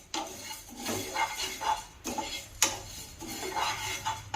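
A spoon stirring and scraping whole spices roasting in a pan, with irregular clinks and scrapes against the pan.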